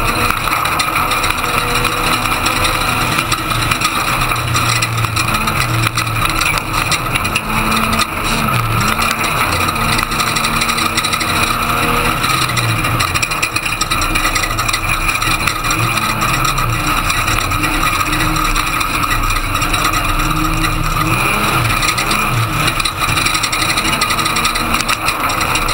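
Ford Ranger race truck's engine running hard, its pitch rising and falling again and again as it accelerates and lets off, recorded on board under a loud steady wash of road and wind noise.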